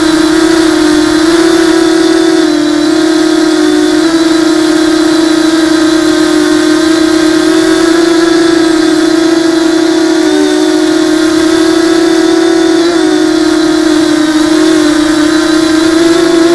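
Electric motors and propellers of a ZMR hexacopter drone whining steadily in flight, close to the onboard camera, the pitch wavering slightly as the throttle shifts.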